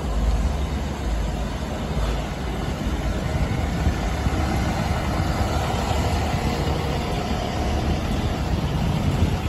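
Diesel engine of a parked fire engine running, a steady low rumble heard close up.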